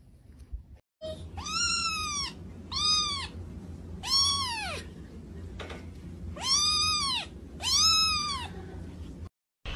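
Grey kitten meowing five times: high-pitched calls, each rising then falling in pitch, over a low steady background hum.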